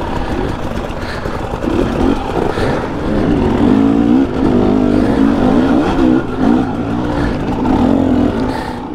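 Dirt bike engine revving up and down under load while climbing a rocky slickrock trail, its note rising and falling as the throttle is worked and loudest about midway.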